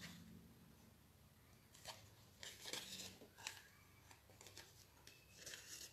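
Faint scratches and rustles of a needle and thread being drawn through pierced holes in a paper card during hand stitching, a few short ones spread through, with quiet between.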